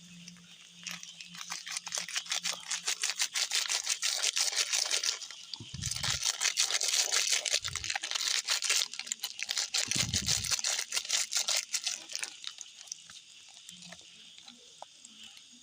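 Rapid scratchy rustling and crinkling as coffee in plastic packaging is handled, opened and poured, with three dull thumps about six, eight and ten seconds in.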